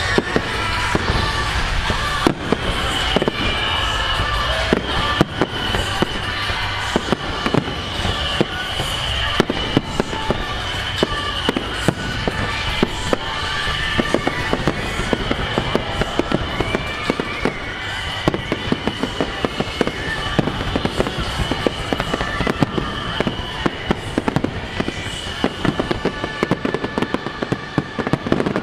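Fireworks display firing rapidly: a dense, continuous run of bangs and crackling from aerial shells bursting one after another, with music playing along underneath.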